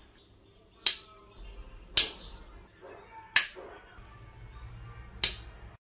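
A spoon tapping against a white ceramic bowl four times as spices are knocked in, each tap a sharp clink with a short ring.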